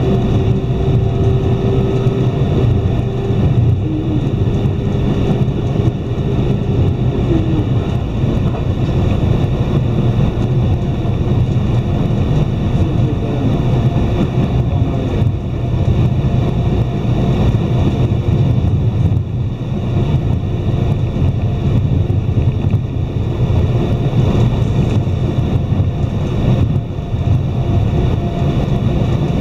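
Iyo Railway Takahama Line electric train running at speed, heard from inside the car: a steady rumble of wheels and running gear on the rails. A faint steady hum sits over it for the first few seconds, then fades out.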